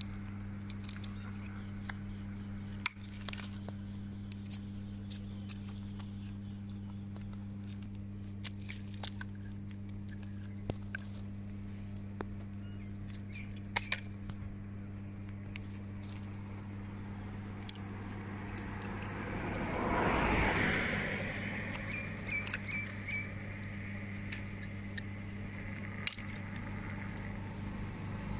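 Freshwater snail shells being cracked and prised open by hand with a small knife: scattered sharp clicks and taps over a steady low hum. A louder rushing swell rises and falls about twenty seconds in.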